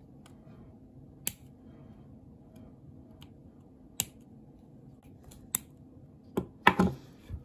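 Plastic sprue cutters snipping small moulding nubs off a plastic model-kit part: single sharp clicks a second or more apart, with a louder cluster of clicks near the end.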